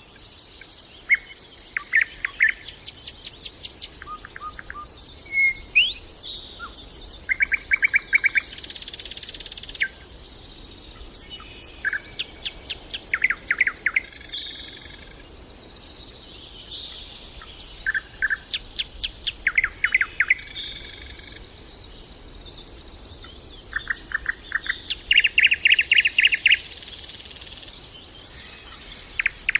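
Nightingale singing: a long run of varied phrases, many of them fast rattling trills of repeated notes mixed with clear whistled notes, each phrase separated by a short pause.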